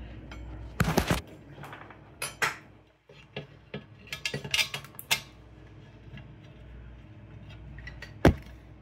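Metal clinks and knocks from the elbow of a Nelson P150 big gun sprinkler being fitted back onto its base and brake assembly by hand. The knocks come in scattered clusters, with the loudest single knock near the end.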